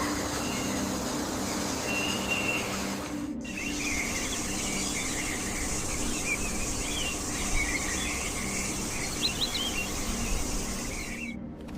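Rainforest ambience: a steady high insect hiss with birds chirping and warbling over it. The sound drops out briefly about three seconds in and again near the end.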